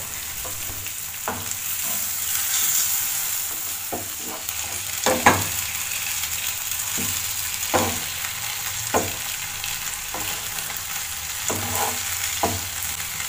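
Masala-coated Indian mackerel sizzling steadily as it shallow-fries in oil in a frying pan. A spatula scrapes and knocks against the pan several times as the fish pieces are turned.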